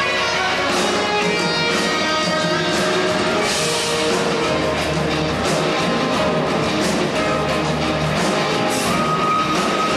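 Live rock band playing loudly: electric guitar over a drum kit, with a steady driving beat.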